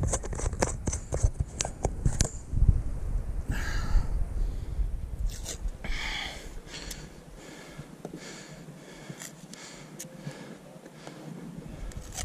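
Rustling, scraping and clicking of clothing and gear rubbing close to a chest-mounted camera, busiest in the first couple of seconds, then quieter scattered ticks.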